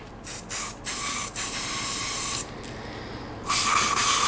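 Aerosol hairspray can spraying: a couple of short puffs, then two longer hisses of about one and a half seconds each with a short pause between. It is sprayed as a stand-in glue for fitting a new motorcycle handlebar grip.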